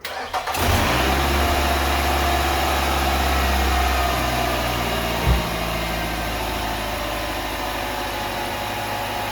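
2006 Nissan Altima engine starting up and catching within a second, then idling fast and easing to a slightly lower, steady idle about five seconds in, with one short thump at that point. It has fresh spark plugs, a new camshaft position sensor and a new ignition coil, and it runs smoothly.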